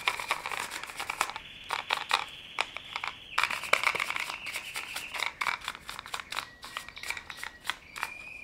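A small brush scrubbing sawdust and debris out of a cordless pruning saw's chain and bar housing: rapid, uneven scratching and clicking. A steady high-pitched hum runs underneath.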